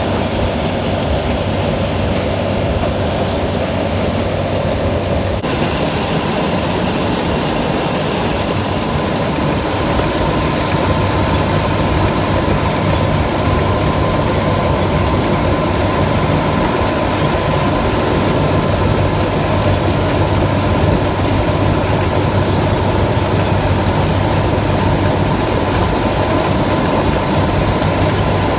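Diesel engine of corn harvesting machinery running steadily, a heavy low drone with a constant higher hum over it.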